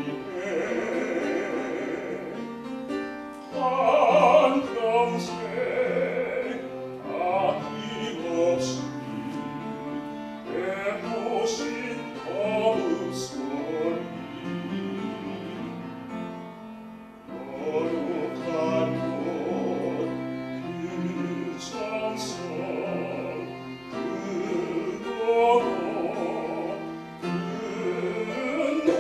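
A man singing a slow song in a classical, operatic voice, with vibrato on the held notes, over an instrumental accompaniment. The phrases are sung one after another with short breaks between them.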